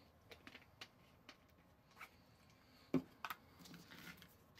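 Faint clicks and light taps of small kitchen items being handled and set down on a tabletop, with one louder knock about three seconds in.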